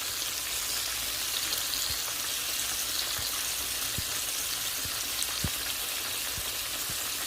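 Flour-coated chicken pieces deep-frying in hot oil in a pot: a steady sizzling hiss with scattered small crackles and pops.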